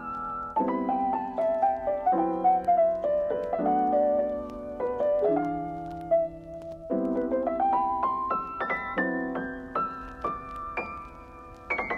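Background piano music: a slow melody of single notes over held chords that change every second or two.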